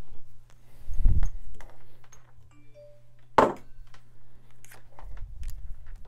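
Handling noises at an electronics repair bench: a dull thump about a second in and a sharper knock about three and a half seconds in, with a few short faint tones just before the knock, over a steady low hum.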